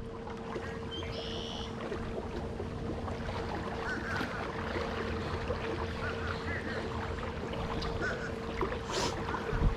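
Wind rumbling on the microphone aboard a small fishing boat, under a steady faint hum. A short high chirp about a second in, a few faint chirps later, and a dull thump near the end.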